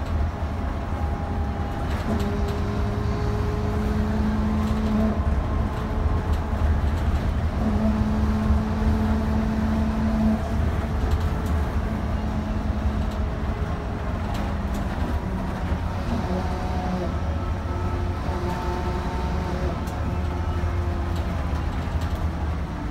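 A city bus driving, heard from inside the cabin: a steady low engine and road drone with a few humming tones that shift in pitch every few seconds.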